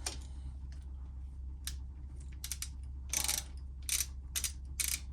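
Hand ratchet wrench clicking in a run of short bursts, getting busier from about halfway through.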